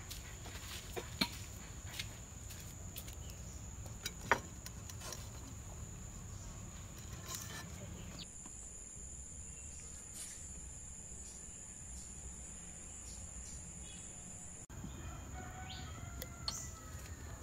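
Outdoor ambience: a steady, high-pitched insect drone, like crickets or cicadas, with bird calls near the end. Two sharp clicks, about one and four seconds in, are the loudest sounds.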